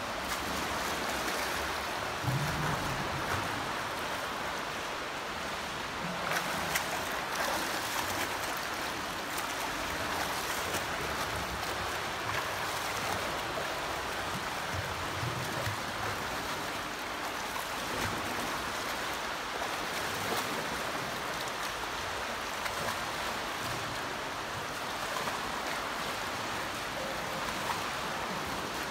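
Steady splashing and churning of pool water from a swimmer's freestyle arm strokes and flutter kick.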